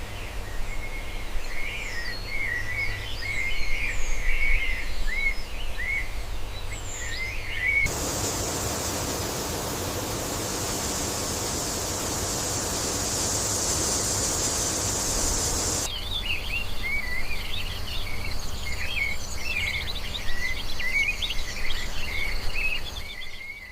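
Birds chirping over a low steady rumble. For about eight seconds in the middle the chirps are abruptly replaced by a steady high hiss, then the chirping returns just as suddenly.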